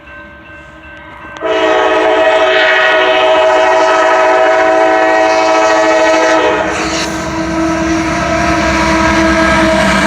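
Nathan K5LA five-chime air horn on a CSX GE CM44AC locomotive. It is faint at first, then sounds a loud, sustained chord about a second and a half in. The chord thins about six and a half seconds in as the low rumble of the passing train grows beneath it.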